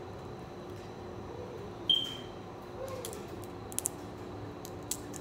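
Crab leg shell being cracked and picked apart by hand: sharp clicks and snaps, the loudest about two seconds in with a brief ringing clink, then a few smaller clicks near the end, over a steady low room hum.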